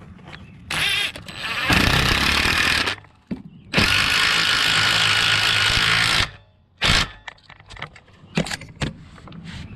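Cordless power tool with a socket running in several bursts, the longest about two and a half seconds, driving in the 10 mm bolts that hold a carburetor's intake manifold on a small four-stroke engine, with a few clicks near the end.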